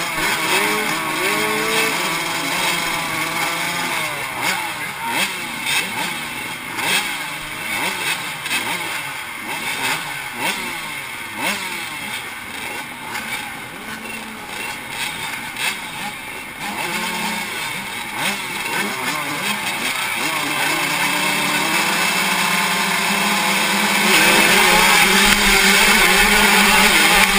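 A gate full of 85cc two-stroke motocross bikes, the helmet-cam rider's Suzuki RM85 closest, revving and blipping up and down while waiting at the start. About 24 seconds in they all go to full throttle together for the launch, and it grows louder and steadier to the end.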